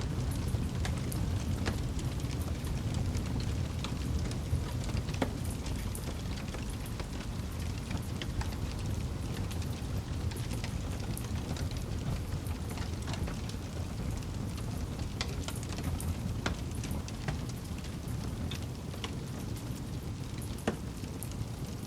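Wood campfire crackling: scattered sharp pops and snaps over a steady low rumble, with one louder pop near the end.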